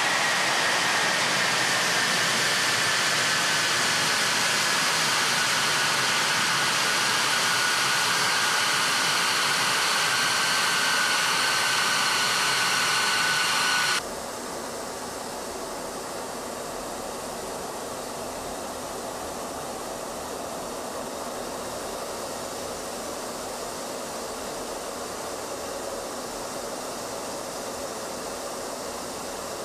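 F-22 Raptor's twin Pratt & Whitney F119 turbofan engines running, a loud jet rush with a high whine that falls slowly in pitch. About halfway through it cuts abruptly to a quieter, steady rushing jet noise with no whine.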